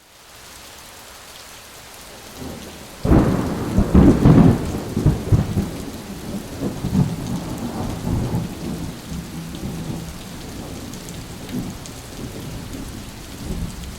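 Steady rain, with a loud clap of thunder breaking about three seconds in and rumbling away over the following seconds.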